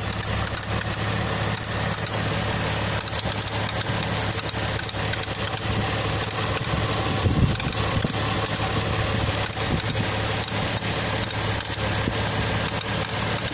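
Toyota 2JZ-GE inline-six engine idling steadily, with a stream of light ticks from the cylinder head: the extraneous head noise under investigation. A brief low swell about seven seconds in.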